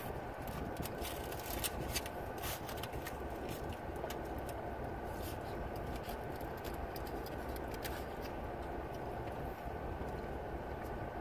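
Steady hum inside a car cabin, with scattered light crinkling and clicking from foil-wrapped burritos being handled and eaten, busiest in the first few seconds.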